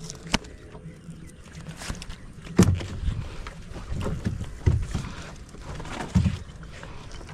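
Gill net being hauled into a small boat by hand: water splashing and dripping, with several dull knocks against the boat, the loudest about two and a half seconds in.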